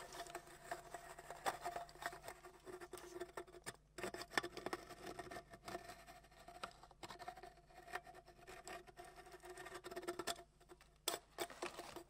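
Faint, rapid, irregular light clicks and scratchy taps over a faint wavering steady tone.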